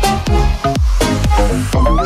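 Electronic dance background music with a steady kick drum, about two beats a second.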